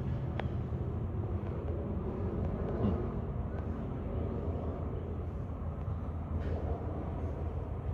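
Steady low outdoor rumble, with a faint click about half a second in.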